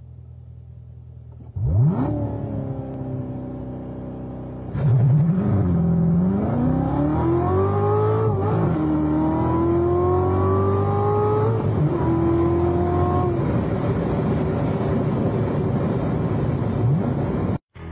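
A 2016 Corvette Z06's supercharged 6.2-litre V8 flares up and settles back to a fast idle, then launches hard at full throttle: the engine note climbs in pitch through the gears, with two upshifts, before cutting off suddenly near the end.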